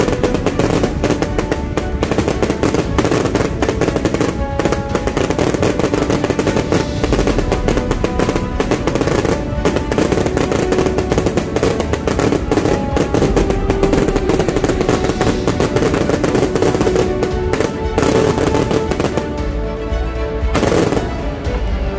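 Aerial fireworks going off in a rapid, continuous barrage of bangs and crackles, with music playing underneath. The barrage thins out near the end, with one last loud burst.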